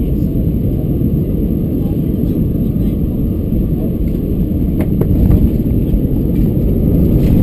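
Cabin noise inside a CFM56-powered Airbus A320-214 airliner: a steady low rumble of engines and airflow that grows louder from about five seconds in, with a few short knocks.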